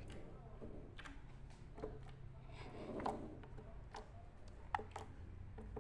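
Slime being squeezed and pressed in the hands, giving a handful of soft clicking pops about a second apart.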